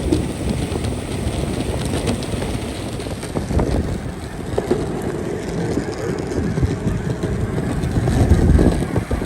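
Hub-motor electric skateboard riding uphill: a steady low rumble of its wheels rolling on pavement, swelling louder about eight seconds in.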